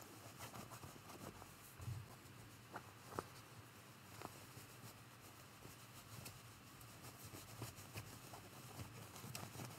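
Near silence with faint rustling and a few soft taps of quilting-cotton fabric being handled, as a stocking's lining is pushed down inside it by hand.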